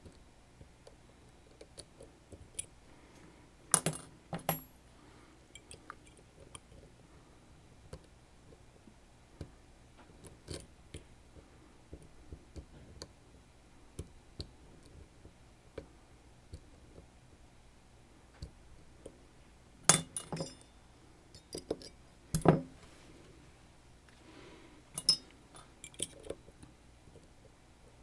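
Small metal clicks and clinks from lockpicking tools and the parts of a Sargent Keso high-security lock being worked by hand, irregular and mostly faint, with a few sharper clinks about four seconds in and again around twenty to twenty-five seconds in.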